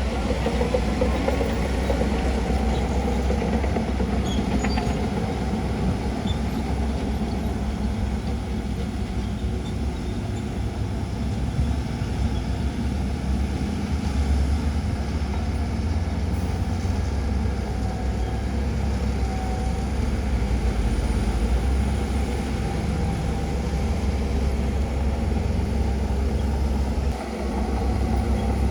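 Diesel engine of heavy earthmoving machinery running steadily, a low rumble, with a brief drop in level near the end.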